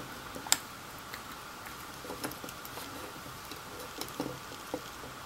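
Scattered light clicks and taps of small plastic parts being handled, as a small electric motor is worked into a toy torpedo's plastic hull. The sharpest click comes about half a second in, with a few softer ones around two and four seconds.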